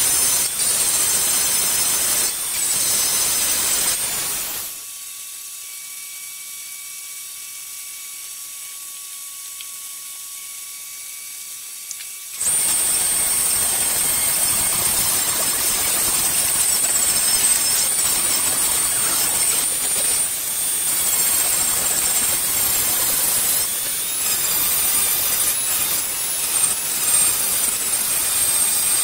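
A bullet spinning in a chuck, being ground against a small mounted grinding stone: a loud grinding with a high steady squeal. About five seconds in it drops to a quieter, steady motor whine, and the grinding starts again about seven seconds later.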